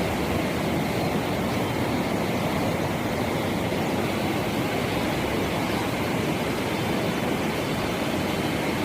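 Floodwater of a swollen river rushing, a steady loud noise.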